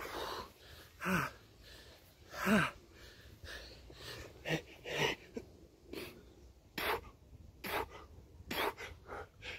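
A man breathing hard and fast from exertion during burpees, with short voiced grunts on some of the exhales, about one every second.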